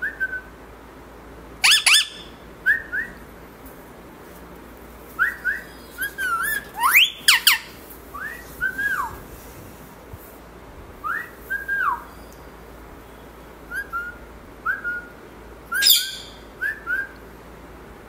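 Indian ringneck parakeet giving short whistled chirps, many in quick pairs that rise and fall, with three louder, shrill calls about two seconds in, around seven seconds and near the end.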